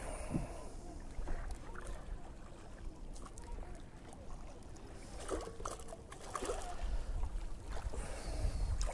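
Low wind rumble on the microphone, with a few faint splashes as a hooked sea bass is drawn through the shallows, about five and six and a half seconds in.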